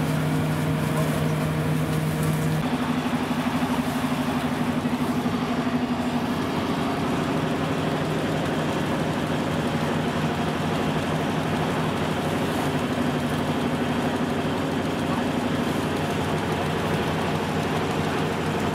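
Dechentreiter JD 46 threshing machine running steadily as sheaves of grain are fed into it: a continuous mechanical drone with a low hum and rattle. The pitch of the hum shifts about two and a half seconds in.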